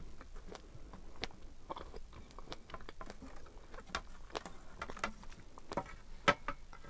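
Close-up chewing of fresh, juicy strawberries: irregular wet mouth clicks and smacks, the loudest near the end.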